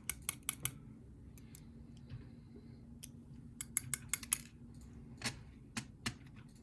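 Light metallic clicks and taps of small lock pins and tweezers as the pin stacks of a mortise lock cylinder are taken out one by one. There is a quick run of clicks at the start, another cluster a little past the middle, and a few single clicks near the end.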